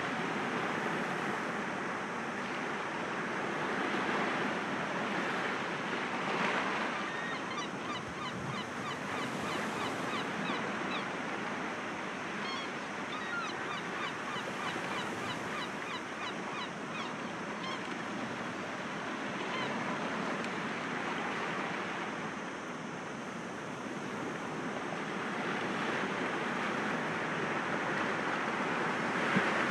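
Sea waves breaking gently against rocks: a steady wash that swells and eases several times, with faint scattered high ticks through the middle.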